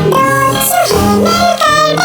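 Electronic music: a synthesized lead line of held notes that slide up and down between pitches, over sustained low notes.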